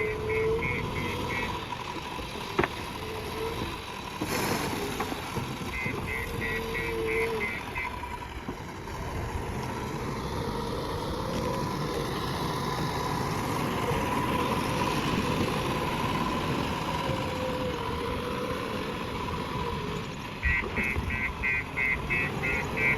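JCB 3DX backhoe loader's diesel engine running steadily, with short spells of rapid beeping at the start, about six seconds in, and again near the end.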